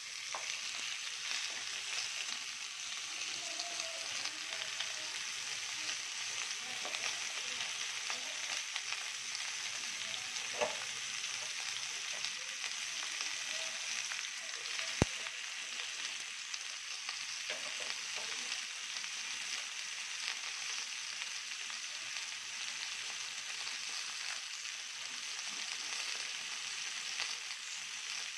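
Bacon-wrapped beef tenderloin steaks sizzling steadily in a hot skillet on a gas burner. There is a single sharp click about halfway through.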